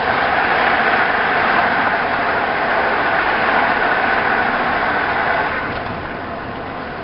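Truck engine idling while stopped, heard from inside the cab, with a louder steady whir on top that starts at once and drops away about five and a half seconds in.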